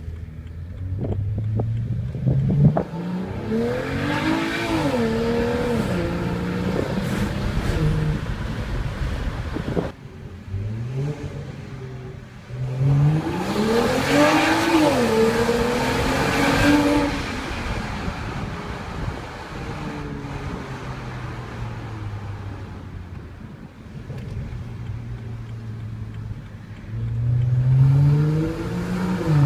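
BMW 335i's N55 turbocharged 3.0-litre straight-six with a BMW Performance Exhaust, heard from inside the cabin while driving. The engine note climbs and drops as the six-speed automatic shifts through the gears in two bursts of acceleration, about four and thirteen seconds in, settles to a steadier lower note between, and climbs again near the end.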